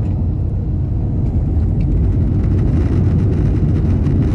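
Jet airliner heard from inside the cabin as it rolls down the runway at the start of its take-off run: a steady low rumble of engines and wheels that slowly grows louder.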